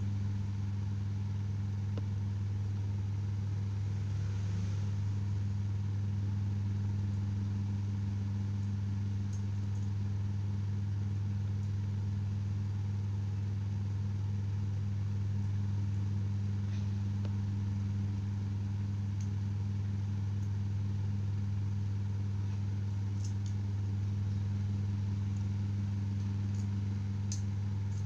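A steady low hum, with several faint light clicks in the last few seconds from small phone parts being handled.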